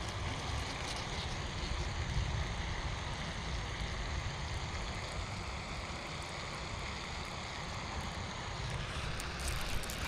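Wind buffeting the microphone: a steady, uneven low rumble under a faint hiss, with a few light clicks near the end.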